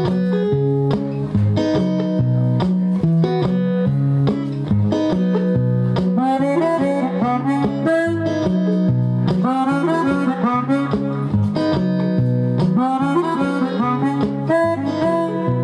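Blues harmonica played cupped against a vocal microphone over a repeating riff on a resonator guitar. The harmonica plays quick bent phrases from about six seconds in.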